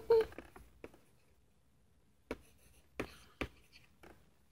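A high voice trails off at the very start, then a few scattered light clicks and taps, about five in all, spread over the remaining seconds.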